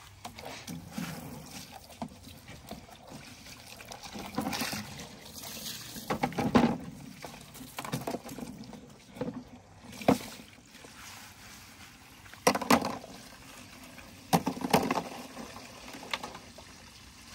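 Water from a garden hose pouring into a plastic tub. Several louder splashes and knocks, from about six seconds in, as plastic hydroponic planting cups are handled and dropped into the water.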